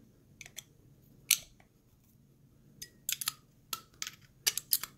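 Irregular sharp clicks of a 2.5 mm hex driver working the M3 socket screws of a 3D-printed corner bracket on aluminium extrusion: a loud click about a second in, then a quick run of clicks over the last two seconds.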